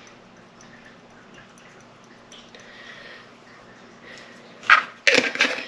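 Ground cumin being shaken from a glass spice jar onto a metal spoon: faint soft ticks and light rattling. Near the end come a few sharp clinks of the metal spoon.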